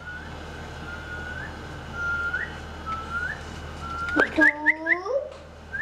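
A series of short whistled notes, each held briefly then flicked upward at the end, about one a second; near the end a lower sliding call with several layers overlaps a few quick rising chirps.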